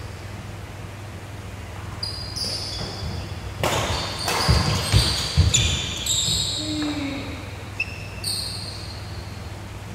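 Badminton rally on a wooden indoor court: sneakers squeak repeatedly on the floor, with sharp racket hits on the shuttlecock and heavy footfalls. The hits and footfalls are loudest between about three and a half and five and a half seconds in. A steady low hum runs underneath.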